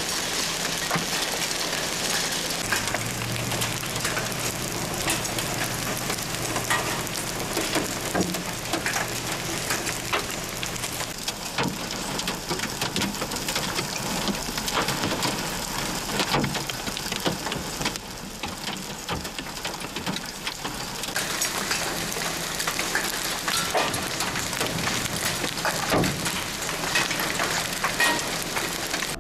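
Hail and heavy rain falling on a paved street: a dense, steady hiss of rain dotted with many sharp ticks of hailstones hitting the pavement and vehicles.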